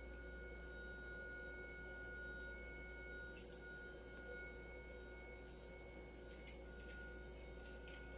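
A steady electrical whine of a few fixed high tones over a low hum. A few faint clicks come through about a third of the way in and near the end, as a cat crunches dry kibble.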